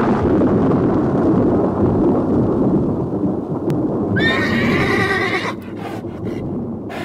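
A long thunder rumble slowly fading, with a horse neighing once about four seconds in, followed by a few short knocks.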